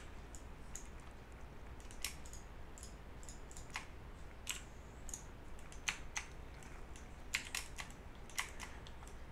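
Computer keyboard and mouse being worked: scattered, irregular light key presses and clicks.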